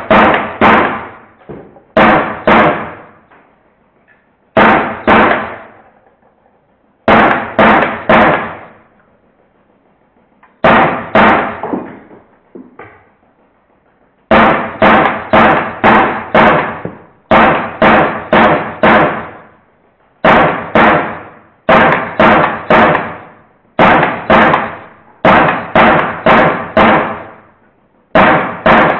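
Drozd Blackbird CO2 BB gun firing on automatic in short rapid bursts of three to five shots, a burst every couple of seconds, with the BBs cracking into metal targets.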